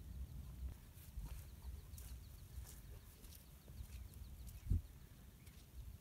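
Faint footsteps on a rocky mountain path, a step roughly every half to two-thirds of a second, over a low rumble, with one louder low thump about three-quarters of the way through.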